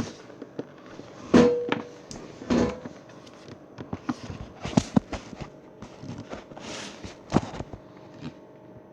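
Kitchen handling sounds: scattered knocks, clatters and brief rustles of dishes, containers and cupboards being moved about, with a few louder knocks spread through.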